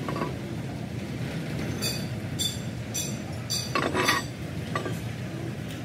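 Light metallic clinks of metal on metal, four about half a second apart, then a heavier knock and a smaller one, over the steady low rumble of running workshop machinery.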